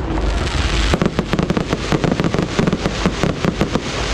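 Aerial fireworks bursting: a quick run of sharp cracks, about six or seven a second, starting about a second in over a steady low rumble of shell bursts.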